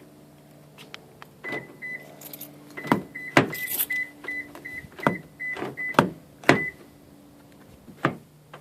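Toyota Prius door lock clicking and knocking repeatedly, about eight sharp clicks, together with a run of about a dozen short high beeps from the car over several seconds. This is a repetitive clicking from a faulty door lock that keeps the door from opening.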